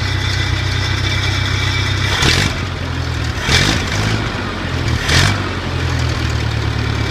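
Ford 600 tractor's four-cylinder gasoline engine running steadily on a bypassed, hot-wired ignition fed from a 12-volt battery and coil. Three brief louder surges come in the middle, a second or so apart.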